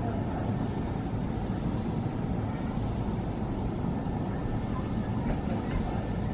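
Helicopter engine and rotor noise, a steady low rumble that keeps an even level throughout.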